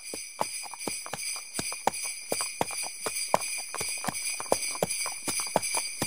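Sleigh bells jingling steadily, with a close run of short, sharp clicks, several each second, among them.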